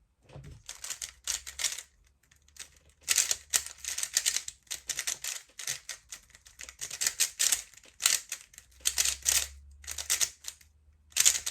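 A 3x3 speedcube being turned fast during a timed solve: clusters of rapid plastic clicking and rattling, broken by short pauses between move sequences.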